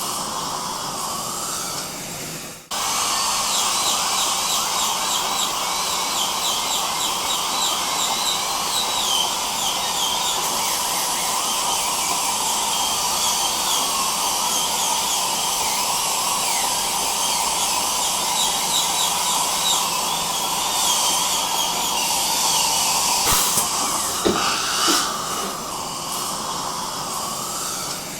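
Dental drill and suction running together: a steady hiss with a high whine that wavers in pitch. The sound cuts out for a moment about two and a half seconds in, then carries on.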